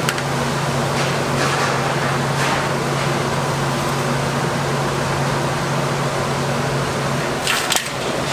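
Steady hum and rushing noise of commercial kitchen equipment around a large cauldron at a rolling boil. A few light metal clinks of a mesh skimmer against the pot come through, with two close together near the end.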